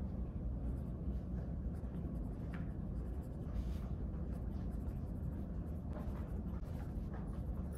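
Pen scratching on notebook paper in short irregular strokes as someone writes, over a low steady background hum.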